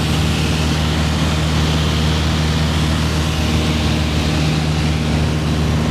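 Piper PA-28-161's four-cylinder Lycoming O-320 engine and propeller running steadily in flight, heard inside the cabin as a constant low hum with a hiss over it.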